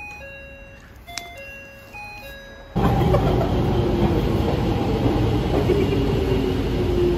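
A simple chiming melody of clear single notes, then, about three seconds in, an abrupt cut to the loud running noise of an Izuhakone Railway commuter train moving along the platform, with a faint low whine in it.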